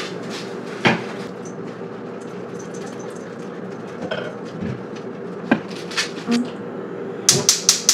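Knocks and clinks of a stainless steel saucepan and an oil bottle on a gas stovetop as olive oil is poured into the pan, ending with a quick run of sharp clicks.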